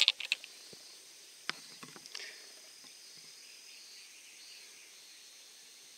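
Quiet open-air ambience with a faint, steady high insect buzz while the golfer addresses the ball. A few light clicks in the first two seconds.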